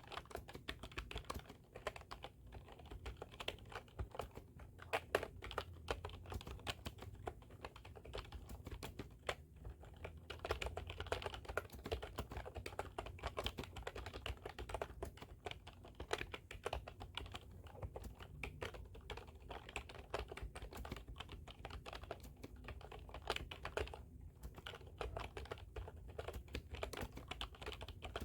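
Continuous typing on a computer keyboard: a rapid, uneven stream of key clicks with short pauses about nine and a half seconds in and again near twenty-four seconds.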